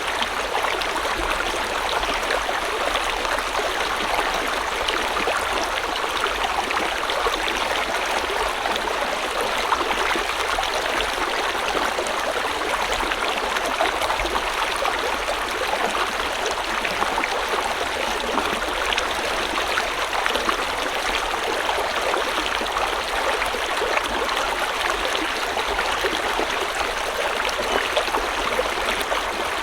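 River water flowing steadily over stones, a continuous rushing and splashing with fine trickling detail.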